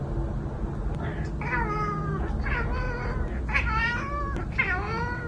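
Cat meowing four times, about one call a second, beginning about a second in, over a steady low hum.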